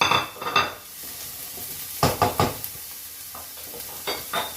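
Onion, green pepper and garlic sizzling in hot oil in a pan, while a utensil stirs them and clinks against the pan in three short clusters of knocks.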